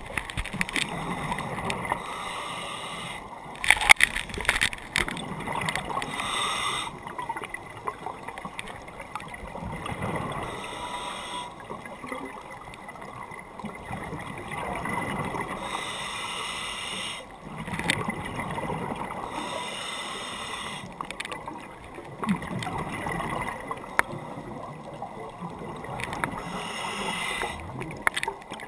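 Scuba diver breathing through a regulator underwater: bursts of exhaled bubbles gurgling alternate with quieter inhalations in a regular cycle every few seconds, with a loud burst of bubbles about 4 seconds in.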